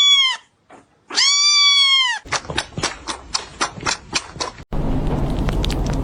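Kitten meowing: two long, high meows, then a quick run of short sounds about four a second. The run cuts off suddenly, giving way to a steady noisy background with a low hum.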